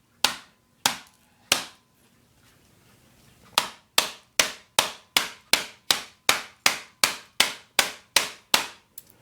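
Repeated hard blows struck on a laptop to force its battery off: three single strikes, a short pause, then a fast, even run of about fourteen strikes, roughly three a second.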